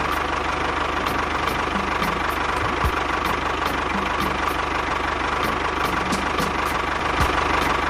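Small engine of a DIY mini bulldozer running steadily at idle after starting, with a light, regular ticking over its steady hum.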